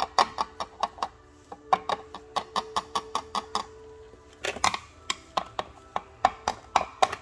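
Run of sharp plastic clicks, about four or five a second in short groups with brief pauses, as the purple lid of a VIP Pets toy salon dome is turned by hand.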